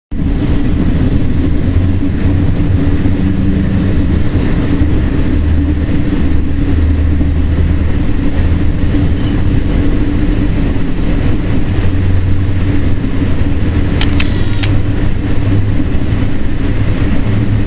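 Train in motion: a loud, steady low rumble and running noise. About fourteen seconds in, a brief high-pitched tone sounds for about half a second.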